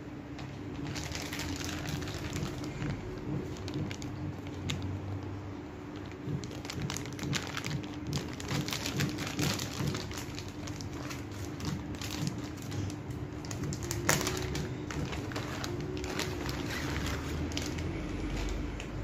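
Plastic packaging crinkling and rustling in irregular bursts as a fabric sling bag is pulled out and handled, with one sharper crackle about fourteen seconds in. A faint steady hum runs underneath.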